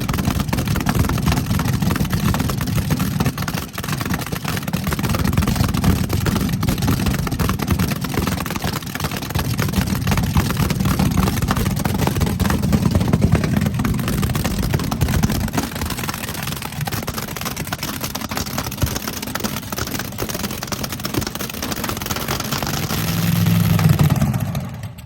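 Loud drag-race car engine running unevenly throughout, swelling briefly near the end before cutting off abruptly.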